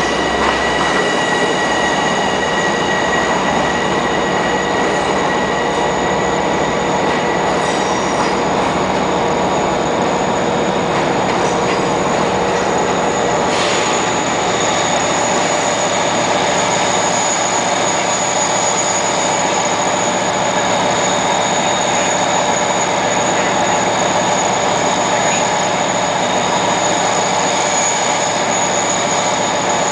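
Long Island Rail Road trains at a station platform: an M7 electric multiple unit pulling out, with a DM-30AC locomotive-hauled train arriving later. Loud, steady rumble with several high-pitched whining tones and wheel squeal that hold throughout.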